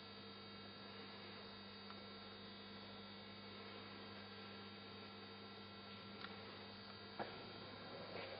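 Faint steady hum, with a couple of short clicks near the end.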